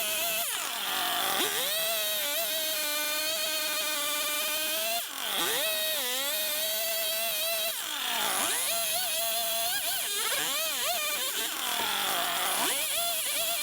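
Two-stroke chainsaw running at high revs for a carving cut, its engine note wavering as the throttle is worked. The note drops sharply and climbs back about five seconds in, again at about eight seconds, and once more near the end.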